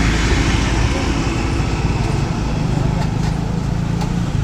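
Steady rumble of road traffic and a running vehicle nearby, with faint voices in the background.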